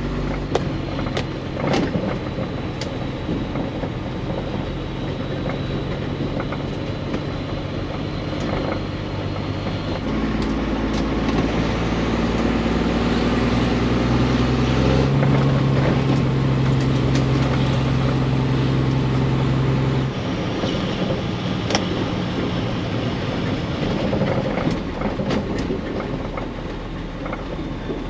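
Background music with sustained low notes that change in blocks every five seconds or so, laid over the steady running noise of a loaded semi truck on the road.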